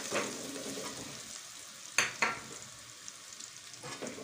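Chopped garlic sizzling in hot oil in a metal kadhai while a metal spatula stirs and scrapes it, with two sharp knocks of the spatula on the pan about two seconds in.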